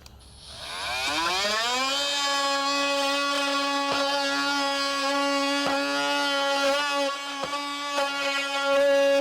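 Oscillating multi-tool starting up, its whine rising in pitch over about two seconds and then running steadily at full speed, with a few sharp clicks along the way.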